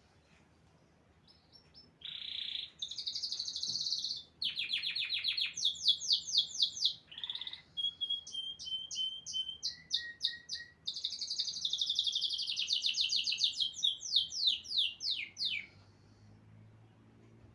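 A small songbird singing a long, varied song of rapid trills and quick repeated high notes, starting about two seconds in and stopping shortly before the end.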